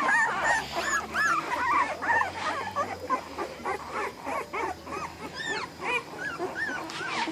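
A litter of American bully puppies whimpering and squealing: many short, high, rising-and-falling cries overlapping one another throughout.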